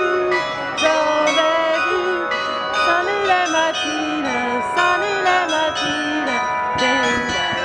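Tower bells rung in changes, struck one after another several times a second, with their tones ringing on and overlapping. A high voice rises and falls over them.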